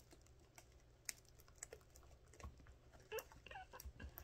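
Faint, irregular sticky clicks and small pops of homemade slime being squished and kneaded by hand.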